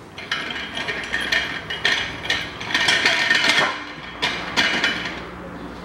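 Metal-on-metal scraping and clattering with irregular clicks, typical of hand tools and a metal drain basin being worked under a car while the oil filter is loosened. It starts about a third of a second in, is loudest around the middle, and dies down near the end.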